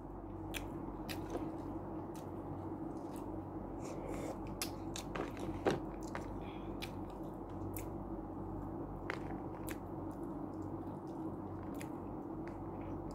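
A person chewing food and eating by hand from a plastic food tray, with scattered faint clicks and taps, over a steady low hum.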